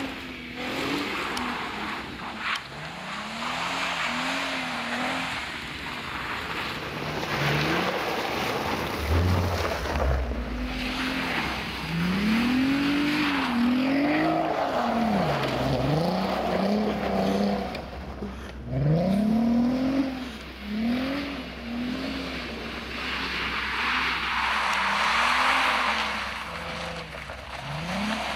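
Volkswagen Golf R32 Mk5's 3.2-litre VR6 engine revving up and down again and again as the car slides in snow, with the hiss of the tyres spinning and throwing snow over it.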